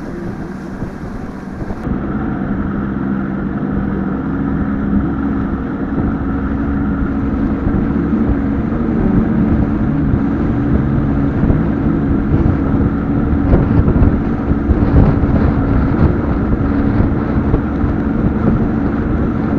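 Bass boat's outboard motor running under way, its steady drone mixed with wind and water noise. The engine note and overall level rise slowly over the first several seconds as the boat picks up speed.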